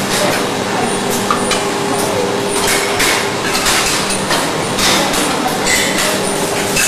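PVC rubber label making machinery running with a steady hum, under frequent irregular clinks and knocks.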